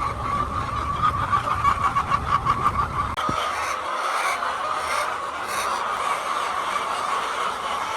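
A flock of hens clucking together in a steady chorus. A low rumble underneath stops about three seconds in.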